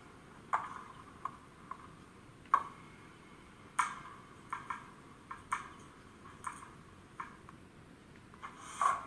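About a dozen sharp, irregular clicks and ticks over a faint hiss, with no steady rhythm; the loudest come about two and a half seconds in and near the end. They come from around a stationary BRAWA H0 model of the E42 electric locomotive that is fitted with a sound decoder.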